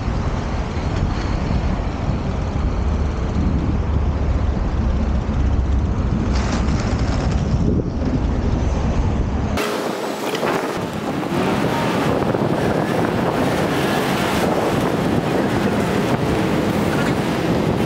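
Wind buffeting the camera microphone over the rolling noise of inline skate wheels on asphalt. About ten seconds in the sound changes abruptly: the deep rumble drops away and a brighter, hissier noise takes over.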